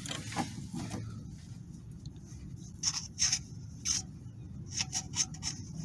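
Anti-seize grease being brushed onto the bearing bore of a CV axle support bracket: a few short, soft scrapes and dabs, clustered about three seconds in and again near the end, over a low steady hum.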